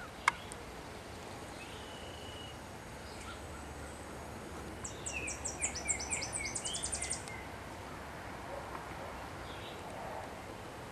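A songbird sings a rapid run of high, chattering notes for about two and a half seconds midway, over a steady faint background hiss. A single sharp click just after the start is the loudest sound.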